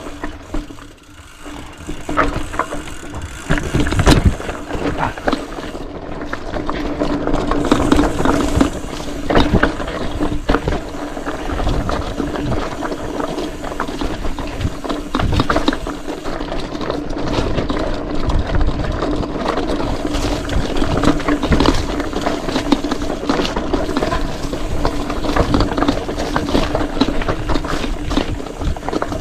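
Mountain bike ridden fast over a rough dirt trail: the chain and frame rattle and clatter over bumps, the tyres hum, and the rear hub's freewheel ratchets in a steady buzz while coasting.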